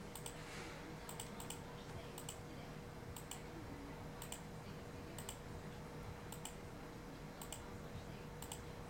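Computer mouse button clicked over and over, about once a second, each click a quick double tick of press and release. A faint steady hum runs underneath.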